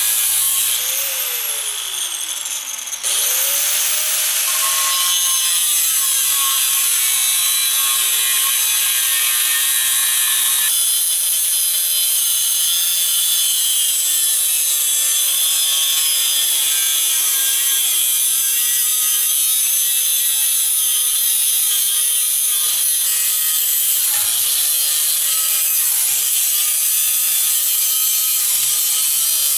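Electric angle grinder with a thin cutoff wheel cutting through the steel frame horn of a 1964 Chevrolet Impala. About a second in, its whine falls as the wheel bogs down in the cut. Near three seconds it spins back up, then runs steadily under load.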